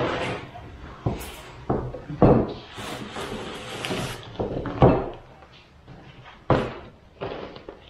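Several sharp knocks and thumps as a heavy rigid mold shell is handled and set down on a work table, with rubbing and scraping as a flexible rubber mold is peeled back from a cast relief.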